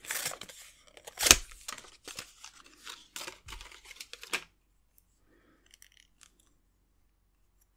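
A water brush's card-and-plastic blister pack being torn open, crinkling and crackling for about four seconds, with one sharp crack about a second in. After that there are only a few faint small clicks as the freed brush is handled.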